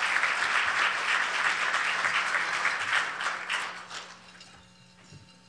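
Audience applauding at the end of a talk, the clapping thinning out and fading away about four seconds in.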